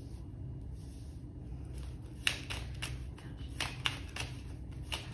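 A tarot deck being shuffled by hand: after about two seconds of near-still, a run of sharp, irregular card clicks and slaps, with the loudest snap of the cards near the end.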